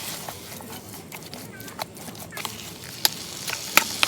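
A series of irregular sharp clicks and knocks, a few louder ones about three seconds in and near the end.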